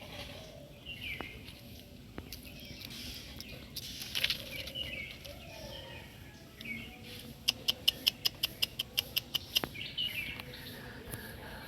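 White-breasted waterhen calling: short downward-slurred notes repeated about once a second, with a loud, fast run of about a dozen sharp notes a little past the middle.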